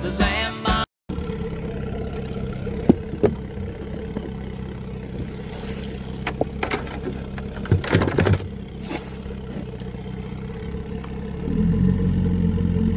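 Outboard motor of a small open boat running steadily under way, with several sharp knocks and clatters around three seconds in and again between about six and nine seconds in; the motor gets louder near the end.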